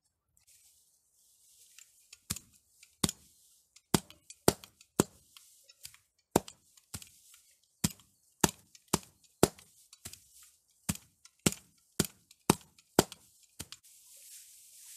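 Sickle blade chopping through dry straw: a run of sharp chops, about two a second, with the straw rustling between strokes. Near the end the chopping stops and the loose straw rustles as it is gathered by hand.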